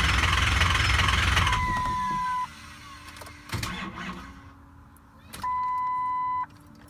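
Ford 6.0 Power Stroke diesel engine cranking on its starter without firing, a crank-no-start. The cranking stops about a second and a half in. After it come two steady electronic beeps of about a second each, a few seconds apart.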